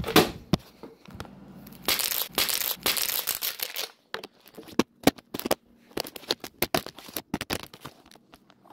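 Phone being handled close to its microphone: about two seconds of rustling, crinkling rubbing noise, then a run of sharp clicks and knocks.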